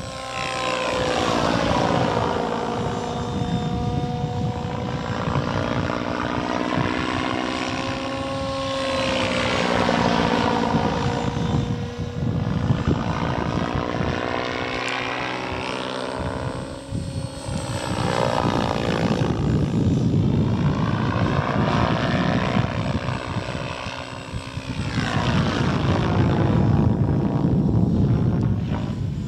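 Raptor E 700 electric RC helicopter flying on a 10S pack with a Scorpion brushless motor: the spinning rotor blades buzz under a high drivetrain whine. The sound swells and sweeps up and down in pitch several times as the helicopter passes back and forth.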